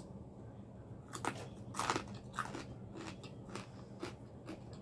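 A person chewing and biting crispy fried food (chicken wings and curly fries): irregular short crunches, the loudest about two seconds in.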